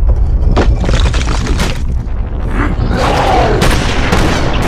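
Cartoon explosion sound effects: a continuous deep rumble with a series of booms and impacts about a second apart.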